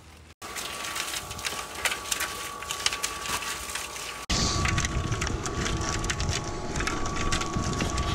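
Electric cement mixer running with a steady whine while sand is tipped into the drum, rattling and grinding. About four seconds in it gives way to wind buffeting the microphone as lengths of steel threaded bar are handled.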